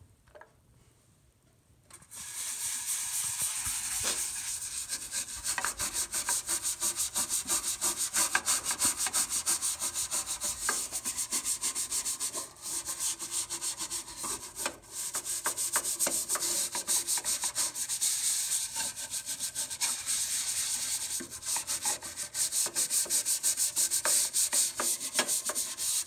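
A scrub brush rubbing rapidly back and forth over the wet, soapy roof of a dirty bird feeder, cleaning off mould and grime. The scrubbing starts about two seconds in and goes on without a break.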